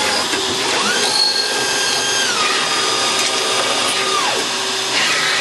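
CNC lathe machining a small metal bit blank: a steady cutting and machine noise, with the spindle whine rising about a second in, stepping down in pitch midway, and winding down near the end.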